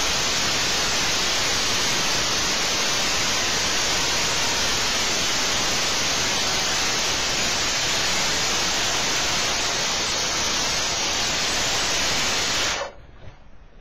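Large-bladed circular saw cutting through a thick timber beam: a loud, steady rush of cutting noise that stops abruptly near the end.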